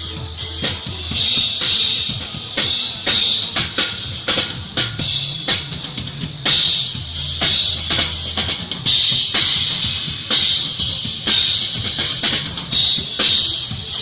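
Snoring: hissing breaths in and out, repeating about every one and a half to two seconds.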